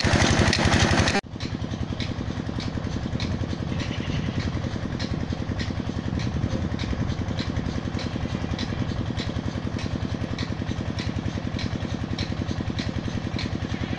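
23 hp Peter (Petter-type) diesel engine running steadily under load, driving a tube-well water pump. For about the first second it is loud and mixed with the rush of water pouring from the pump outlet. After an abrupt drop it goes on as a quieter, even beat with a light tick about three times a second.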